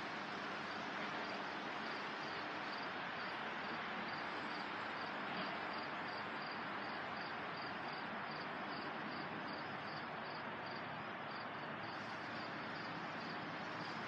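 Steady rustle of wind moving through leafy trees, with an insect chirping about twice a second.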